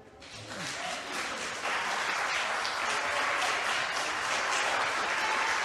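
Audience applauding in a council chamber, swelling over the first couple of seconds and then holding steady.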